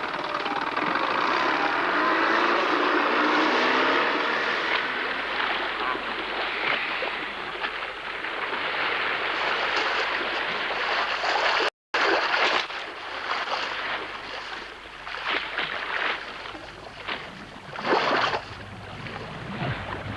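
A boat under way on open water: the steady rush of its wash and spray. About two-thirds of the way through, the sound cuts out for an instant and comes back choppier, with irregular slaps and splashes of water.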